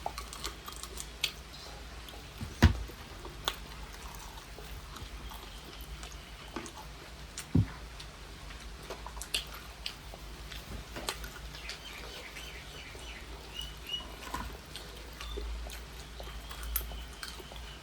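Quiet eating sounds: chewing with scattered small clicks and knocks, the two loudest knocks about two and a half and seven and a half seconds in.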